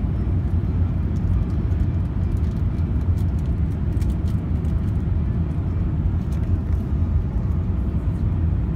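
Steady low rumble of Airbus A380 cabin noise on approach, engine and airflow noise heard from a window seat over the wing with the flaps extended.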